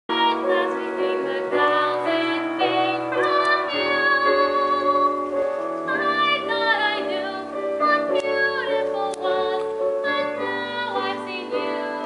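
A woman singing a musical-theatre song over instrumental accompaniment, with long held notes sung with vibrato.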